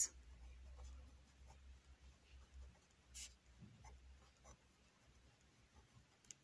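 Ballpoint pen writing on paper: faint, scattered scratching strokes over a low steady hum.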